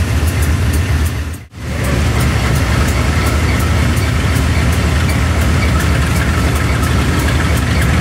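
Diesel locomotive engine running loudly and steadily, heard from the cab while shunting ballast wagons. It drops out for a moment about one and a half seconds in, then carries on.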